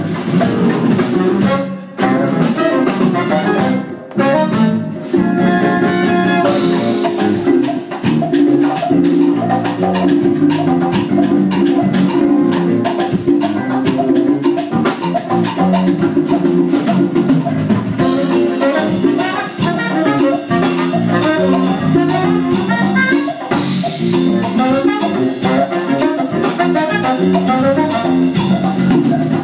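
Jazz-style band music with busy drums and percussion under a pitched melody, with two short breaks about two and four seconds in.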